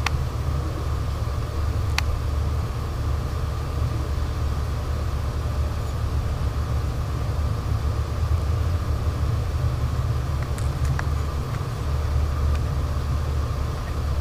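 Steady low rumble with a constant hum over it, broken by a sharp click about two seconds in and a fainter click near eleven seconds.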